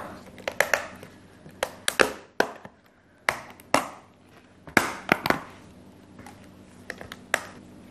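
Irregular sharp clicks and light knocks of plastic paint tubs being handled and set down on a table, about a dozen taps spread out with short pauses between.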